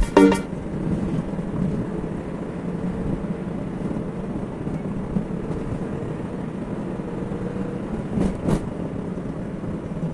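Steady engine and road noise heard from inside a small truck's cab while driving, a low even drone, with two brief louder swells about eight seconds in. Music cuts off just after the start.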